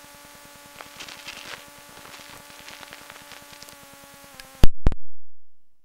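Hiss and a steady hum from an old recording with no voice, with faint crackles. About four and a half seconds in comes a very loud pop, then two more thumps that die away as the recording cuts off.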